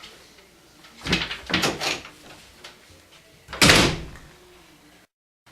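A door being handled: a few knocks and rattles about a second in, then a louder bang a little past halfway. The sound cuts out entirely just before the end.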